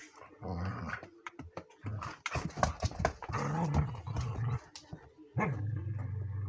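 Two dogs play-fighting, giving low growls in several rumbling stretches, one held over a second near the end, with sharp clicks and scuffling as they wrestle in the middle.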